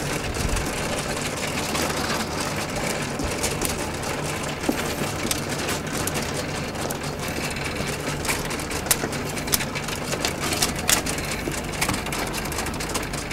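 Plastic mahjong tiles clicking and clacking as they are picked up and set in a row, with many sharp clicks scattered throughout. Under them runs a steady mechanical hum.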